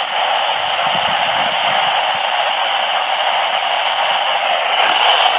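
Steady hiss of radio static from a receiver picking up no clear signal, narrow and tinny like sound through a small speaker.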